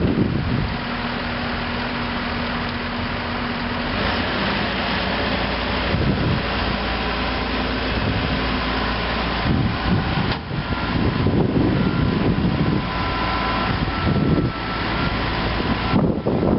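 Heavy diesel machinery engine running steadily, with thin, steady whining tones over it. Wind buffets the microphone in gusts during the second half.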